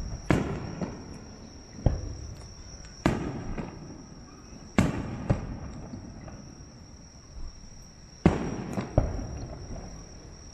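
Aerial firework shells bursting overhead: about seven sharp booms at uneven intervals, each trailing off in a rolling echo. A steady high-pitched tone runs underneath.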